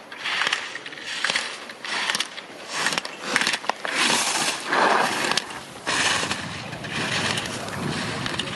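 Slalom skis scraping and carving on hard-packed snow: a series of loud hissing scrapes, one for each turn through the gates, with a longer, louder one around four to five seconds in.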